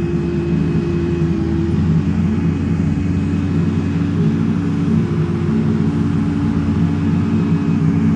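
Steady engine drone of a vehicle under way towing a hitched trailer, its low hum shifting slightly in pitch about two seconds in.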